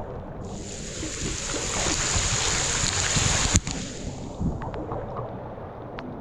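Creek water sloshing and splashing around a camera held at water level by a swimmer. A steady rushing hiss builds, then cuts off sharply with a knock about three and a half seconds in, followed by small scattered splashes.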